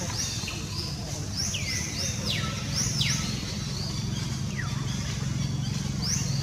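Birds calling in the background with repeated short, high whistles that sweep downward in pitch, several in quick succession, over a steady low hum.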